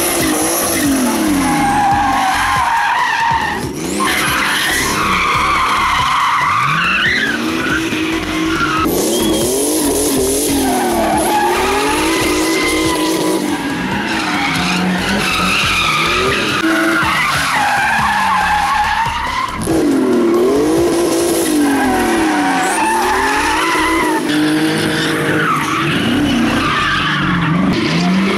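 Rally car engine running hard and revving up and down, its pitch climbing and dropping again every second or two without a break.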